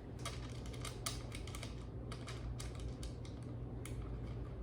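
Irregular light clicks and taps from cat-tree parts being handled and screwed together by hand, a few a second, over a steady low hum.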